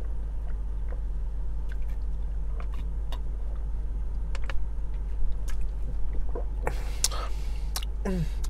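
A person chewing bites of a wrapped burger, with small wet clicks and wrapper crinkles, over a steady low hum inside a car. There is a brief rustle about seven seconds in.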